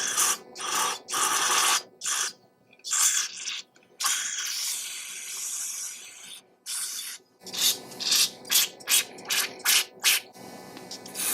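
Spray hissing in short, sharp bursts to clean out a gummed-up small-engine carburetor: a longer burst about four seconds in, then a quick run of short bursts in the last few seconds.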